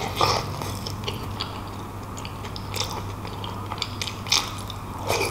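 Close-miked biting and wet chewing of soft beef shank meat and tendon, heard as many short, scattered wet clicks and smacks from the mouth.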